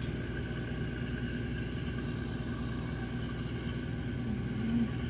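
Steady drone of a fishing boat's engine running, unchanging in pitch.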